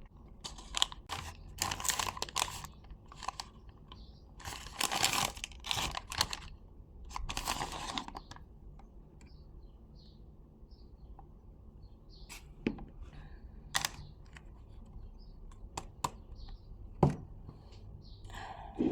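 Packaging being torn and crumpled, in several rustling bursts through the first eight seconds, followed by a few scattered light knocks and clicks.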